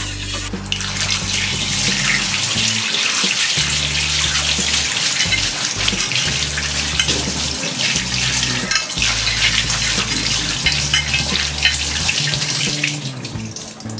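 Tap water running and splashing onto a flat metal tawa (griddle) in a steel sink while hands rub it clean, rinsing it after scrubbing. The water starts about half a second in and fades near the end.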